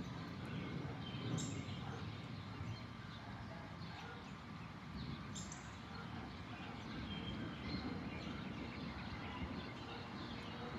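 Birds chirping here and there over a steady low outdoor background noise.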